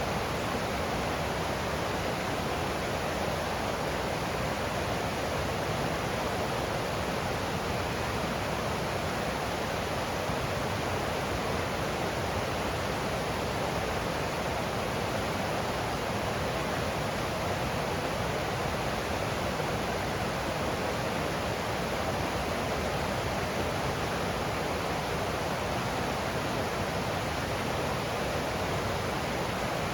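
Stream water rushing and splashing over rocks, a steady, even rush.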